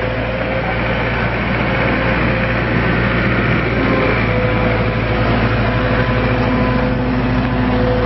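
John Deere 317 skid steer's diesel engine running steadily as the loader drives and turns, with a steady whine over the engine note.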